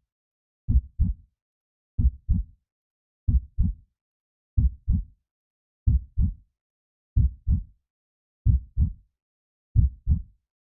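Heartbeat: slow, even double thumps (lub-dub), one pair about every 1.3 seconds, deep and dull, with silence between beats.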